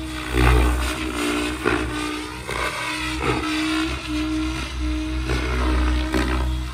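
Electric 700-size RC helicopter (XL Power Specter 700) in flight: a steady motor-and-gear whine with the main rotor blades whooshing again and again as it manoeuvres. A low rumble surges and fades underneath.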